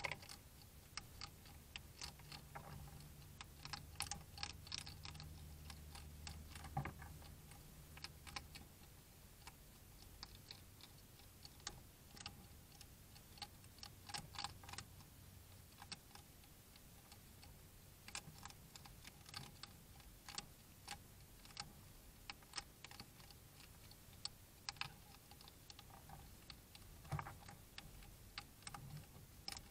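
European hedgehogs chewing and crunching food: faint, irregular crunchy clicks, coming in clusters.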